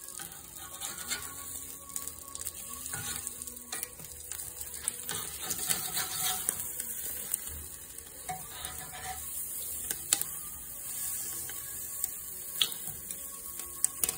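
Spatchcocked chicken sizzling on the hot cast-iron grate of a Weber Q gas grill, a steady hiss, while metal tongs turn the pieces over with a few sharp clicks against the grate.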